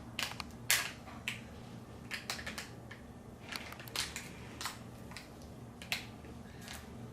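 Plastic toy packaging being handled and pried at: irregular crinkles and clicks, with a few sharper cracks.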